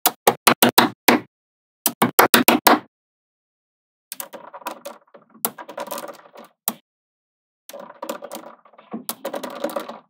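Small magnetic balls clicking as they snap together one after another: two quick runs of about eight sharp clicks each, then longer stretches of softer, denser clicking and rattling.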